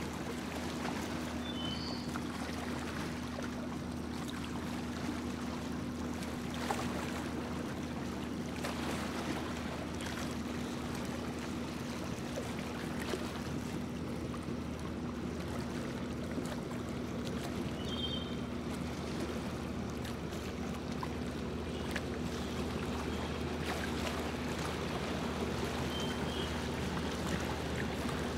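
Boat motor running steadily with a low drone, over the rush of water past the hull. A few brief high chirps come through near the start, past the middle and near the end.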